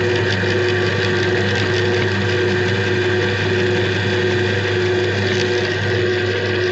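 Electric meat grinder running steadily, its motor humming at a constant pitch under a dense grinding noise.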